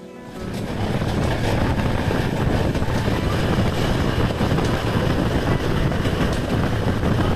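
Passenger train running at speed, heard at an open carriage window: a steady rumble of wheels on the track mixed with wind noise, starting about half a second in.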